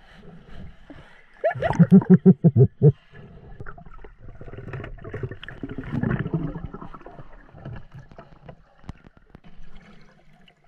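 Muffled underwater sound through the camera housing as a snorkeler swims: water movement and gurgling, with a quick run of short low pulses about two seconds in.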